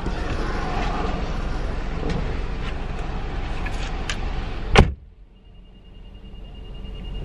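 Steady hiss of rain, then a car door slams shut with one loud thump a little under five seconds in. After the slam it is much quieter, with a second door thump at the very end.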